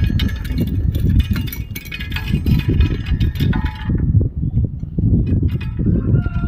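Wind rumbling and buffeting on the microphone, with sharp clicks and metallic clinks from garden rakes being handled close by for the first few seconds. A steady, slightly falling high whine starts near the end.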